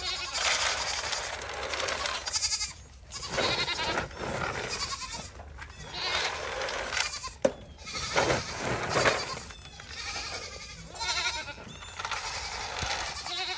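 Several goats bleating over one another in repeated wavering calls, hungry and calling for feed. One sharp knock sounds about halfway through.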